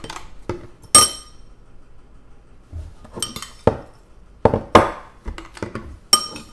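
Metal spoon clinking against a ceramic bowl and the blender cup while frozen blueberries are scooped out and tipped into a personal-blender cup: several sharp, ringing clinks at irregular intervals, the loudest about a second in.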